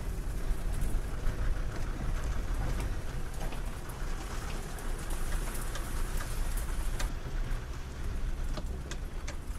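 Steady rain-like hiss with many small crackles over a heavy low rumble, cutting in and out abruptly.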